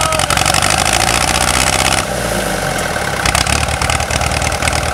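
John Deere 1010 tractor engine running steadily just after starting, a sign that the newly replaced starter solenoid did its job. It goes slightly quieter for about a second two seconds in.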